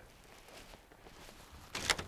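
Faint footsteps in packed snow, with one short, louder sound just before the end.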